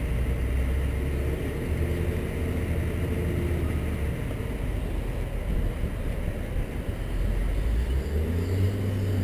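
Heavy diesel engine running with a low steady hum, revving up about eight seconds in and holding the higher speed.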